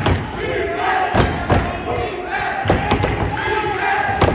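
A basketball bouncing on the court in irregular thuds, amid shouting voices from the crowd and players.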